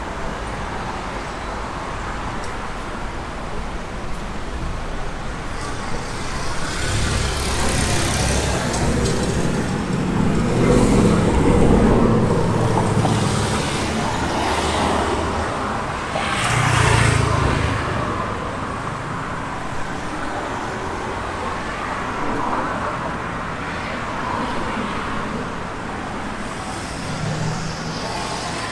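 Street traffic with cars passing close by: a steady background of road noise, swelling as vehicles go past about seven to thirteen seconds in and again about seventeen seconds in.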